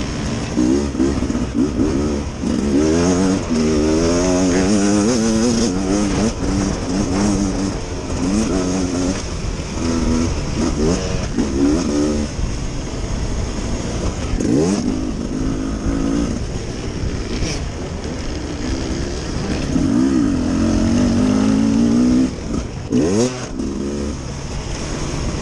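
Beta 300RR Race Edition's two-stroke single-cylinder engine under hard riding, revving up and down again and again, its pitch climbing and dropping as the throttle is worked.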